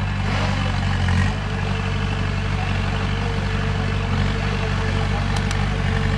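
Heavy diesel engine of construction machinery running steadily at a low pitch, with two short clicks near the end.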